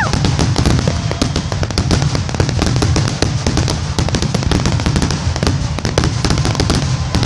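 Fireworks going off: a dense, rapid run of bangs and crackles over a continuous low rumble.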